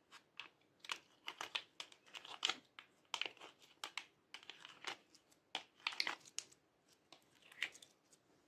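Pink slime being peeled and pulled out of a plastic ice cube tray by hand, giving irregular clusters of sticky crackles and small pops as it comes away from the tray.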